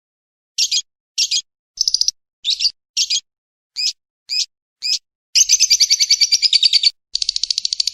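A bird calling: a string of about eight short, buzzy chirps, each a quick rattle of pulses. From about five and a half seconds in come two long rapid trills, one straight after the other.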